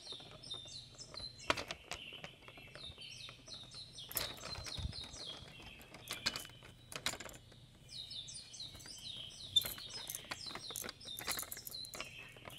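Rapid, repeating high chirps like bird song, coming in runs of a few seconds from a baby bouncy seat's battery-powered toy bar, with the hanging plastic toys clicking and clacking now and then as they are handled.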